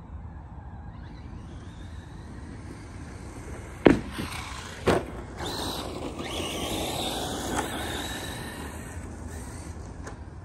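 ARRMA Mojave 4S RC truck's brushless motor whining higher as it accelerates. Then two loud thumps about a second apart as the truck comes down from a jump, followed by the motor running and tyres rolling over the ground for a few seconds before fading.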